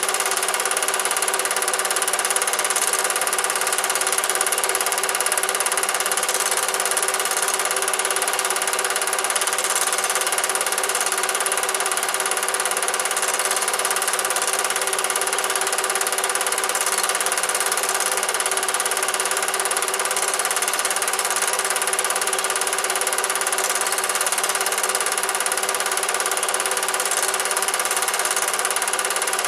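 Cine film projector running steadily: a constant mechanical whirr and clatter from its motor and film transport.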